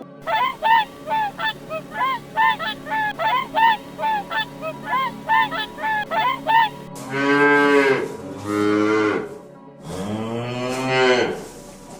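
Geese honking in a quick run of short calls, about three a second. About seven seconds in, this gives way to two long, low mooing calls from a cow.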